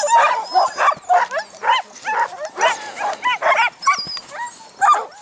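A yard of sled dogs barking and yipping, many dogs at once, short overlapping calls several times a second.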